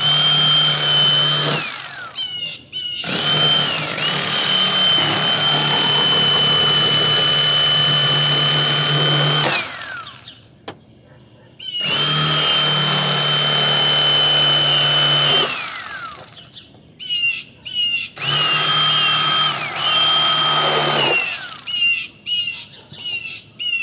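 Bubba electric fillet knife cutting crappie fillets: a steady high motor whine over a low hum, running in four long stretches of a few seconds each with short bursts between them, the whine gliding down each time it stops.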